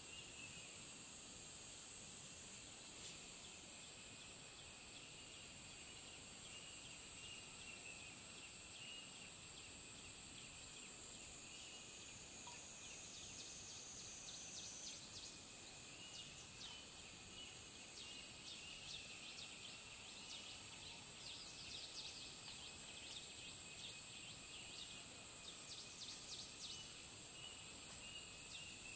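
Steady high-pitched drone of insects with a lower pulsing chirp beneath it. From about halfway through, a scatter of faint quick clicks joins in.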